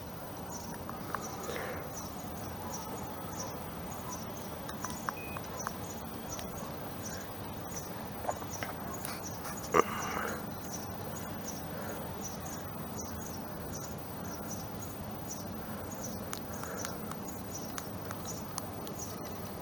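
Cricket-like insect chirping, short high chirps repeating evenly at about two a second over a steady faint hiss, with one sharp click about ten seconds in.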